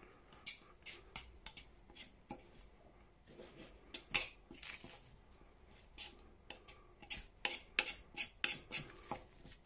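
Knife blade scraping along a venison shank bone: a run of short, sharp scrapes and clicks of steel on bone, coming faster toward the end, as meat and membrane are cleaned off the bone.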